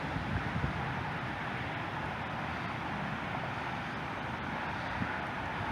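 Steady outdoor background noise with wind rumbling on the microphone.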